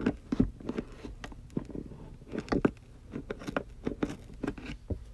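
Scissors cutting through a cardboard box flap: a string of short, irregular snips and crunches.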